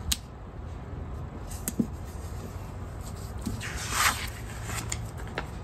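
Paper sticker sheets and planner pages handled on a desk: a few light taps and clicks from fingers on paper, and a short paper rustle about four seconds in as a sticker sheet is lifted.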